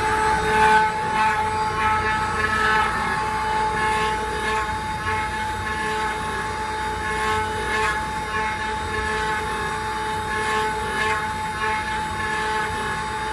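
Multi-head 4th-axis CNC wood router carving wooden columns: its spindles whine with steady held tones while the router bits cut into the turning wood blanks, making a recurring scratchy cutting noise.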